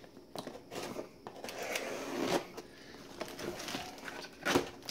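A cardboard shipping box being handled and opened by hand: scraping and rustling of cardboard and a plastic packing-slip pouch, with a few short sharp clicks, the loudest near the end.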